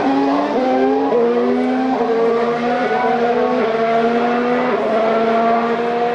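Formula One cars' 1.6-litre turbocharged V6 hybrid engines accelerating away from practice starts. The note climbs and drops back with each of several quick upshifts.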